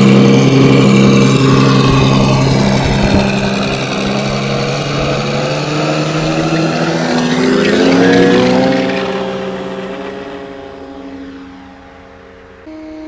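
Benedini digital sound unit in an electric RC warbird model, playing a piston aircraft engine sound through its speaker. The engine note holds steady, then rises in pitch about seven seconds in as the throttle opens for takeoff, and fades away as the model flies off.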